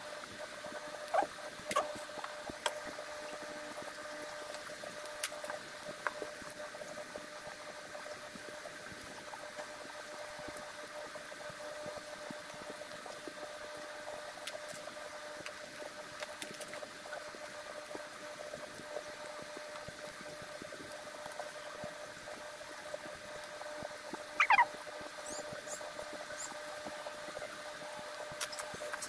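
Faint clicks and taps of small plastic snap-cap capsules being filled and pressed shut by hand, over a steady hum. About 24 seconds in, a short rising squeak.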